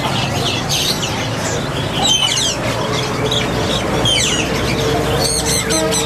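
Many caged songbirds chirping and calling over one another in short, quick high notes, over a steady low hum of street traffic.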